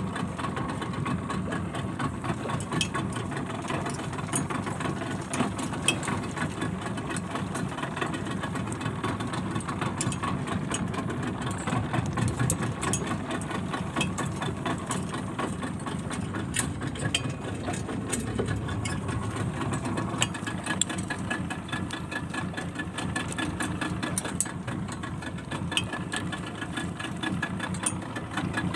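Small fishing boat's engine running steadily, with many light clicks throughout.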